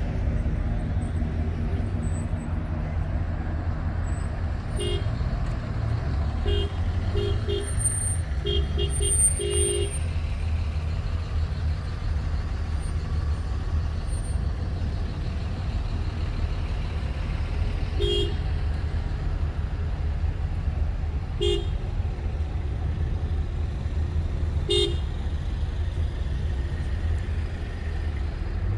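Car horns honking in short toots over the steady low rumble of slow-moving traffic: a run of quick beeps from about five to ten seconds in, then single honks spaced several seconds apart.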